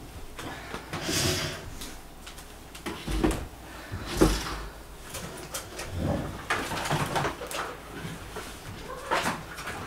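Irregular knocks, thumps and rustles of things being handled and moved about a small room, with two heavier low thumps about three and four seconds in.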